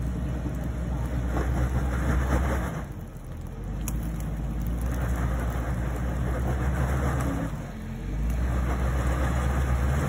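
Jeep Wrangler LJ's engine revving under load as it climbs a wet rocky ledge. It swells three times, each a few seconds long, with brief easings of the throttle between.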